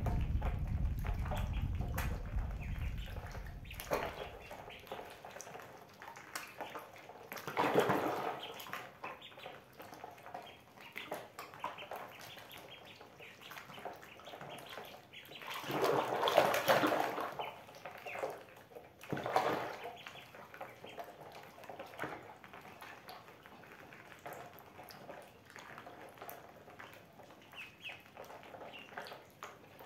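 Ducklings paddling and dabbling in a plastic basin of water: soft splashes and small drips, with louder bursts of splashing about a quarter of the way in, around the middle and shortly after. A low rumble fades out over the first few seconds.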